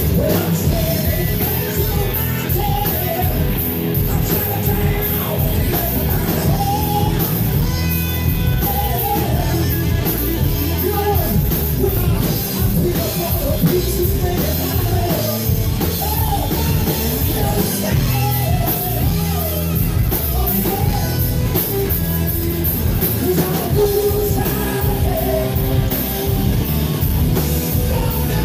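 Live rock band playing: electric guitars, bass guitar and drum kit, with a male lead singer.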